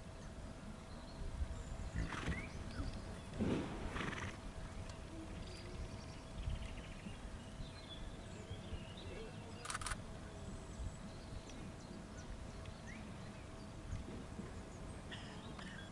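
A horse whinnying about two seconds in, a loud call followed by a second, stronger one, over a steady low outdoor rumble.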